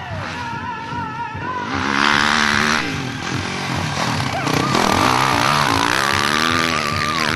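A Honda motocross bike's engine revving up and down as it rides by close on a dirt track. It gets much louder about two seconds in, and its pitch drops away near the end.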